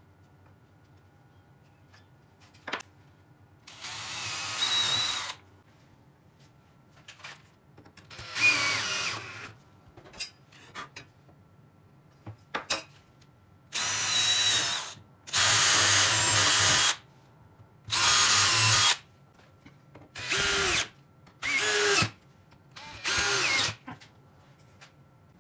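Power drill running in about eight short bursts, drilling into pine to fix an upright block to a wooden base, with small clicks of handling between the bursts.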